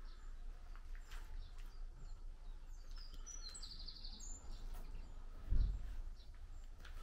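Songbirds chirping in short high calls, busiest in the middle, over a steady low rumble. One dull low thump about five and a half seconds in is the loudest sound.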